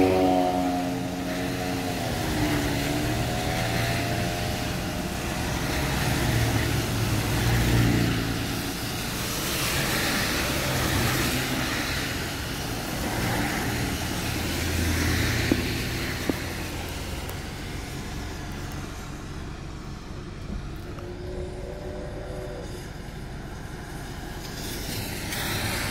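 Steady road noise inside a moving car on a wet road, with tyre hiss and engine running. A pitched tone with several overtones glides down and back up in the first few seconds, and a fainter pitched tone sounds about 21 seconds in.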